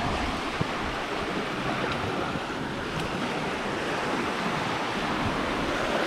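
Small Black Sea waves washing onto the beach: a steady, even wash of surf.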